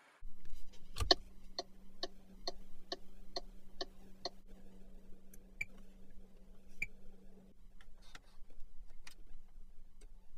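A car's turn-signal indicator ticking evenly about twice a second, opening with a louder click and stopping after about three seconds, over a low steady hum. A few scattered single clicks follow.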